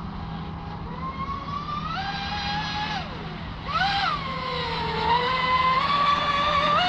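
TFL Zonda RC boat's electric motor whining at speed, its pitch rising and falling with the throttle. It climbs about two seconds in, drops, surges again near four seconds, dips, then rises once more near the end, over a steady low hum.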